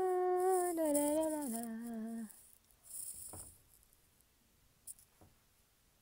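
A woman humming a short descending tune of about three held notes, lasting about two seconds. A soft breath and a couple of faint clicks follow.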